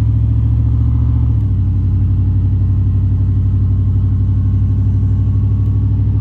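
Vehicle engine running with a low, steady rumble that eases off slightly about a second and a half in.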